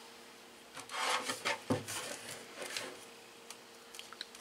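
Plastic housing of an electric shower being handled and turned over, rubbing and scraping several times against the tabletop, followed by a few light clicks near the end.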